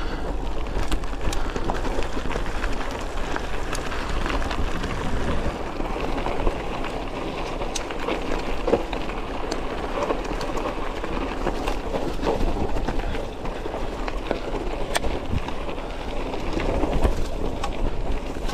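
Polygon Syncline C2 carbon hardtail mountain bike riding down a dirt trail: a steady rush of knobby tyres rolling over dirt and leaves, with scattered clicks and knocks as the bike and its suspension fork rattle over bumps.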